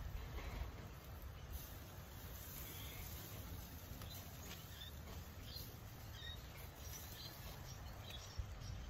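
Quiet outdoor ambience: a low wind rumble on the microphone with scattered faint high chirps.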